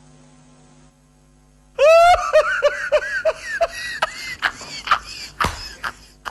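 A man laughing loudly, starting about two seconds in with a quick run of high 'ha-ha-ha' that falls in pitch, then laughing on with sharp hand claps. Before the laugh there is only a faint steady hum.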